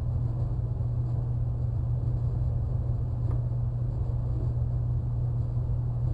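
Steady low background hum with no change in pitch or level, and one faint click about three seconds in.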